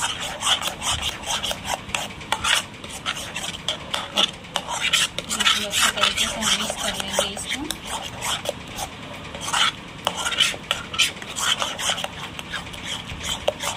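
Metal spoon stirring and scraping a thick barfi mixture of mawa and paneer around a kadhai: quick, irregular scrapes and clicks of the spoon against the pan.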